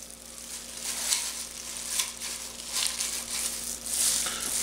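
Kitchen shears cutting through a raw chicken's rib bones along the backbone, with irregular sharp crackling snips.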